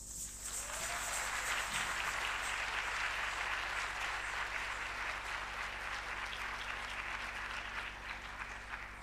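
Audience applauding, building up within the first second and tapering off near the end.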